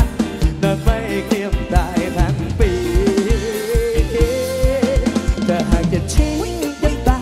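Live pop-rock band playing: a drum kit with a steady kick-drum beat, electric guitar and bass, and a singer's voice over the top. A single note is held for about two seconds in the middle.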